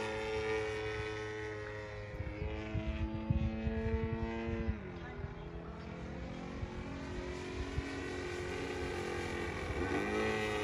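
Radio-controlled model aeroplane's engine droning overhead in flight, its pitch dropping about five seconds in and climbing again near the end as the throttle or distance changes.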